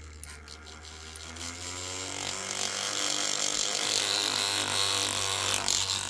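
Small battery motor of a handheld cordless paint shaker running with a steady low hum, as it mixes a bottle of copper paint whose pigment had settled to the bottom. A buzzing rattle builds up from about a second in and grows louder toward the end.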